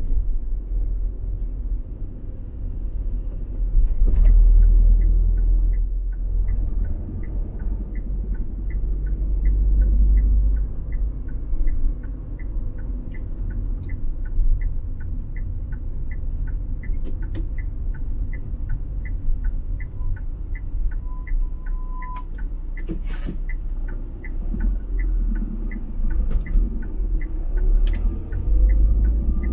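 Car cabin road noise: a steady low rumble from the moving car. From a few seconds in, a turn-signal indicator ticks evenly about twice a second, with a single sharp knock near the end.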